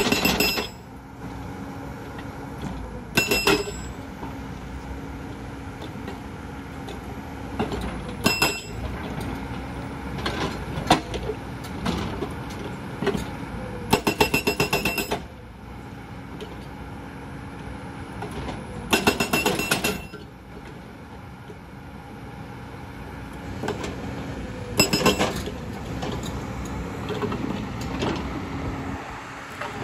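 Hydraulic rock breaker on a JCB tracked excavator hammering stone in loud short bursts of rapid blows, the longest over a second at about nine blows a second, over the steady hum of the excavator's diesel engine.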